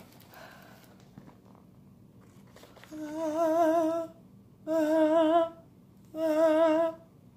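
A woman's voice singing three long held notes, each about a second long with a wide vibrato, starting about three seconds in.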